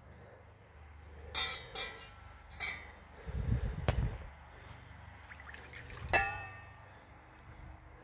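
Crowberry juice poured from a stainless steel pot into a stainless steel bowl, with a short splashing pour about three and a half seconds in. Metal clinks and rings as the two vessels touch: a few light clinks before the pour and the loudest clink about six seconds in, as the pot is set down.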